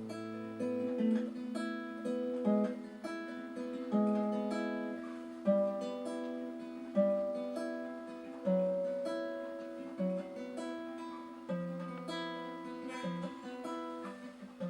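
Acoustic guitar playing an instrumental passage without singing: picked notes with a strong accented chord about every second and a half.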